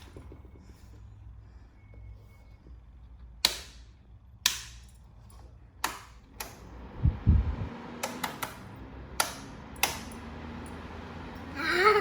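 Sharp clicks of a Silvercrest box fan's plastic controls being pressed and turned, with a low thump partway through. After the thump the fan's motor runs with a steady low hum. A brief rising sound comes near the end.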